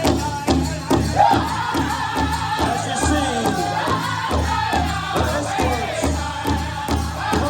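A band playing a song with a steady drum beat of about two beats a second and a singing voice over it.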